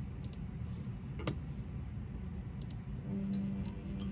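Low hum and hiss of VHS tape playback across a blank stretch between segments, broken by a few sharp clicks; a low steady tone comes in near the end.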